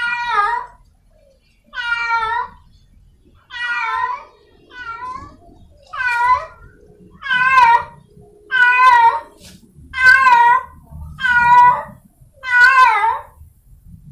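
Feral cat in heat calling for a mate: about ten drawn-out, wavering meows in a row, roughly one every second and a half.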